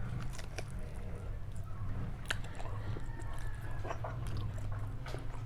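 Close-up chewing and biting of roast chicken: scattered short wet clicks and smacks of the mouth and teeth, over a steady low hum.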